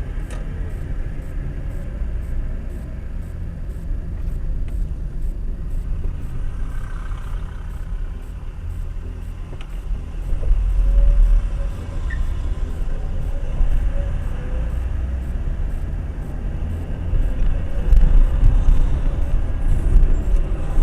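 Steady low rumble of a car's engine and road noise while driving, swelling a little about ten seconds in and again near the end.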